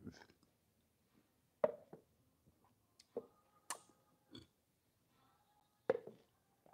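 A few short scattered taps and clicks from a paper coffee cup being handled on a plastic tray and lifted for a drink.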